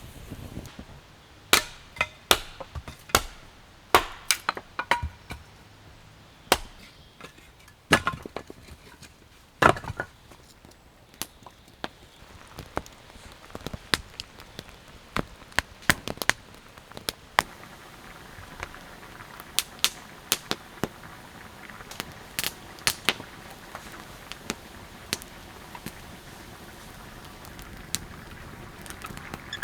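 A series of sharp cracks and knocks, spaced irregularly, loudest and sparsest in the first ten seconds, then smaller and more frequent, over a faint steady hiss.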